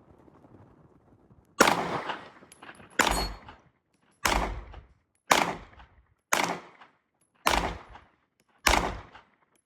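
SIG P320 pistol fired seven times in steady slow fire, about one shot a second, each crack followed by a short echo.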